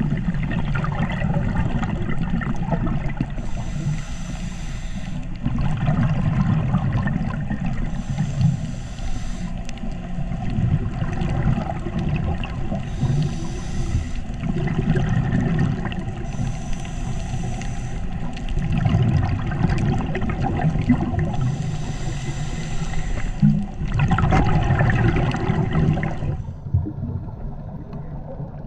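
Underwater sound from a scuba diver's breathing: bursts of exhaled bubbles hissing every four to five seconds, over a steady low rumble of water moving against the camera.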